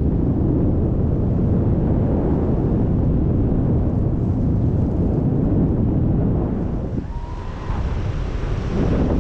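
Strong wind buffeting the microphone: a loud, low rumble that eases briefly about seven seconds in.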